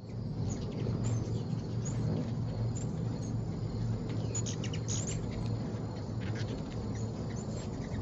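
Hummingbirds at a feeder giving short, very high chips, most of them in the first five seconds, over a steady low rumble.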